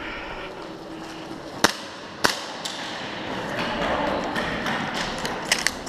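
Two sharp, loud airsoft cracks about half a second apart, a little under two seconds in, then a quick cluster of lighter clicks near the end, over the hubbub of an indoor arena.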